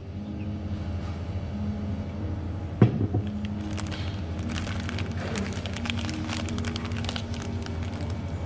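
Background music with held notes, and from about three seconds in a plastic bread wrapper crinkling as the bread is handled and drawn out of it. A single sharp knock comes just before the crinkling starts.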